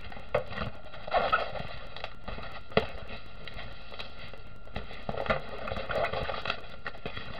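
Plastic release film on a diamond painting canvas crinkling and crackling as the large sheet is handled and laid down, with one sharp click a little under three seconds in.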